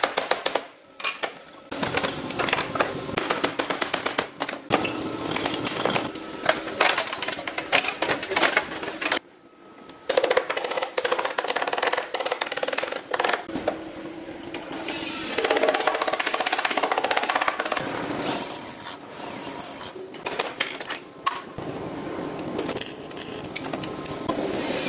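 Background music over body-shop work: hand-held air tools rattling and cutting into sheet metal in fast bursts, with metal clatter.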